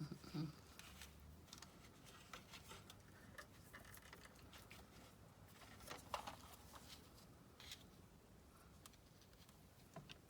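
Near silence, with faint scattered clicks and rustles of craft materials being handled at a work table, a few a little louder around the middle.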